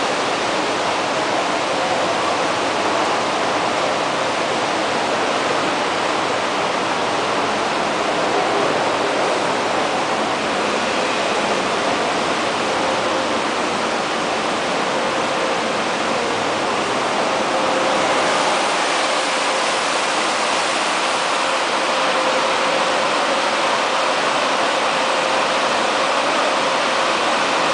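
Automatic tunnel car wash running: a steady rushing of water spray and spinning brushes over a car, with a faint steady motor hum underneath. The rush turns a little louder and brighter about two-thirds of the way through.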